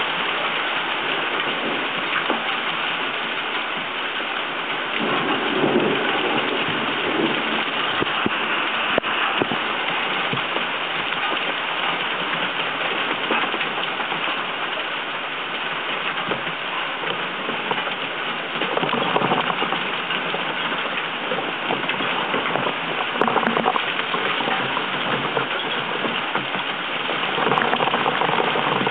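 Hurricane rain and wind beating on a waterproof compact camera left outdoors: a steady heavy rush that swells louder in gusts several times.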